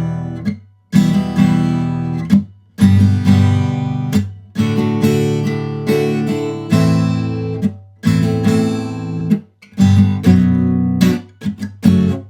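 Acoustic guitar strumming chords across all the strings, in short phrases that cut off suddenly where the strings are damped with the fretting hand.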